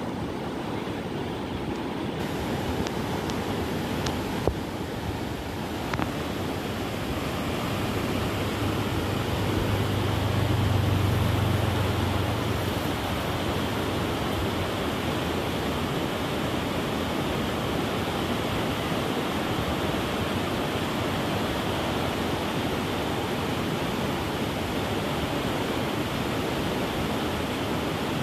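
Fast, muddy river rushing over a stony bed in rapids: a steady rush of white water. A low hum swells and fades around the middle.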